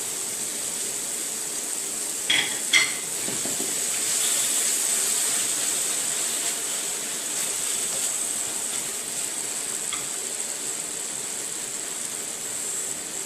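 Tomato sauce mixture sizzling steadily in hot oil in a pan, with two sharp clinks of a utensil against the pan about two seconds in, as it is stirred.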